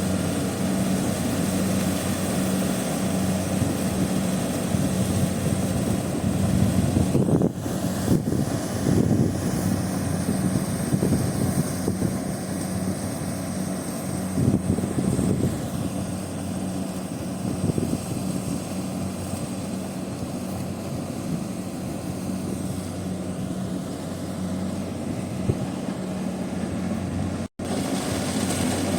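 Kubota DC70 rice combine harvester running steadily at working speed, its engine and threshing machinery giving a constant drone. The sound drops out for an instant near the end.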